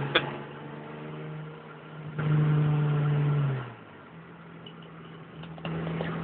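Hyundai Tiburon engine and exhaust, with new headers and a leaking catalytic converter section, heard from inside the car: a steady running note that gets loud under throttle for about a second and a half, then drops off suddenly about two-thirds of the way in and settles into a quieter, steady cruise.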